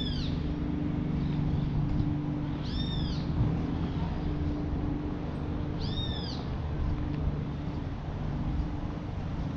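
A high-pitched animal call, each one short and arched (rising then falling), repeated about every three seconds. Under it runs a steady low hum.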